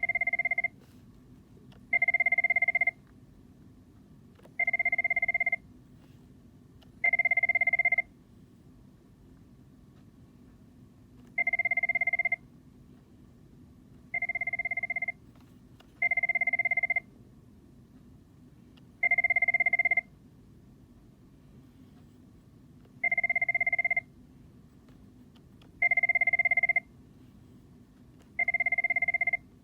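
Digital telephone's electronic ringer sounding in short steady beeps, each under a second long, repeating eleven times at slightly uneven intervals of two to four seconds. A faint low hum sits underneath.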